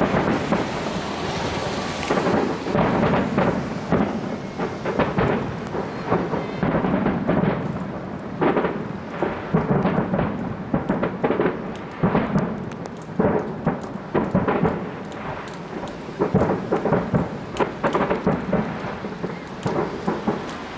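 Aerial firework shells exploding one after another, a dense run of bangs and crackles with a rumble rolling between them.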